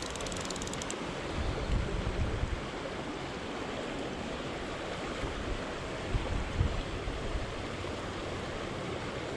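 Rushing creek water, a steady even rush, with low gusts of wind on the microphone about two seconds in and again past six seconds. A fly reel's click ratchet chatters briefly in the first second.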